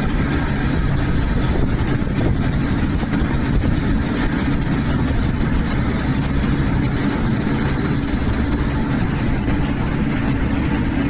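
Boat engine running steadily under way, with a constant rush of wind and water over it.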